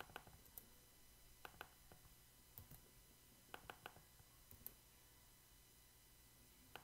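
Faint, scattered clicks from a computer mouse and keyboard while text is selected, copied and pasted between form fields. About a dozen sharp clicks, some in quick pairs and triples, over near-silent room tone.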